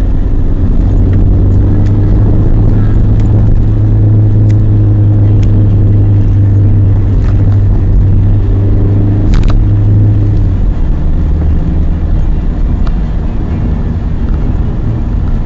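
Car engine and road noise heard from inside the moving car: a steady low drone over tyre rumble. The engine hum drops away about ten seconds in.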